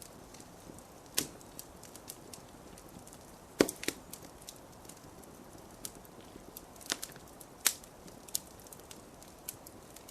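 Wood cracking and snapping: irregular sharp cracks, about five of them louder, with many fainter ticks between them.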